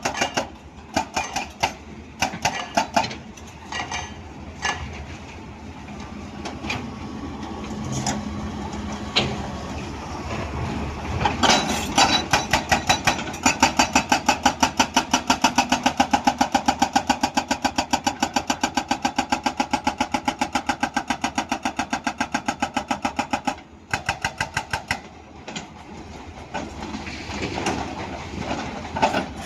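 Hydraulic breaker on a Hyundai excavator hammering rock in rapid, even strokes, with the excavator's diesel engine running under load. The hammering comes in short irregular bursts at first, runs steadily through the middle, breaks off briefly, and starts again near the end.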